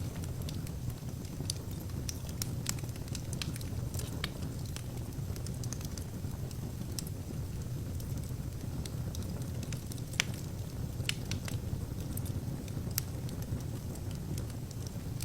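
Wood fire burning in an open fireplace: a steady low roar of flames under irregular sharp crackles and pops from the burning logs, one louder pop about ten seconds in.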